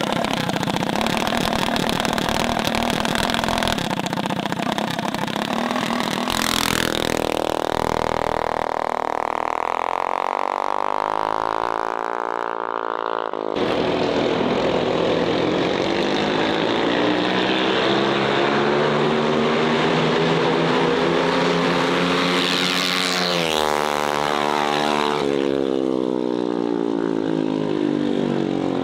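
Mini bike engines revving hard through a street drag-race pass, the pitch climbing steadily as they accelerate. The sound changes abruptly about halfway through, and a second climb ends near the end with the engine pitch bending sharply as the bikes go by.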